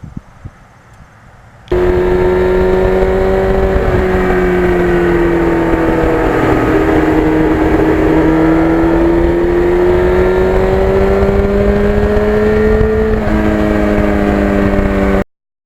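Yamaha FZR1000's inline-four engine running at a steady cruising speed, its pitch sagging slightly and then rising again. It cuts in suddenly about two seconds in and cuts off just as suddenly near the end.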